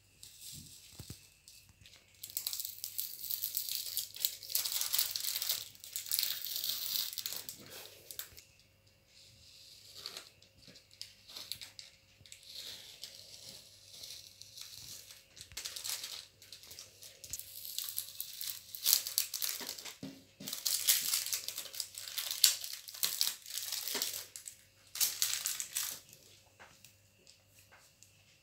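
Crinkling and rustling handling noise in irregular bursts, with small clicks, as things are handled and moved about close to the microphone.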